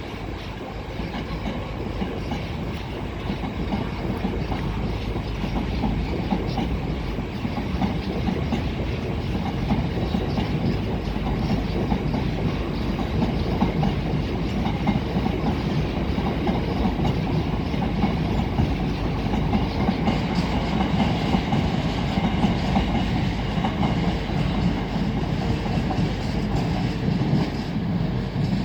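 A train running past with its wheels clattering over the rail joints. The sound is continuous and builds a little in loudness through the passage.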